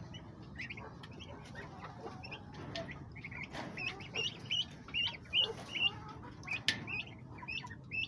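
Young turkey poults peeping: many short, high chirps that rise and hook at the end, coming several a second, with one sharp click near the end.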